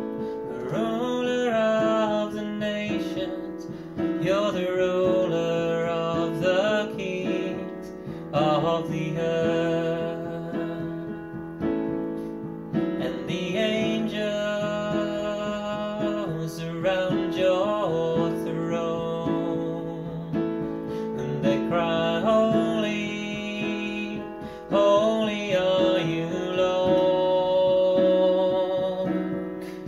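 A man singing a worship song, with held notes that waver in vibrato, over instrumental accompaniment that sounds mainly like piano or keyboard.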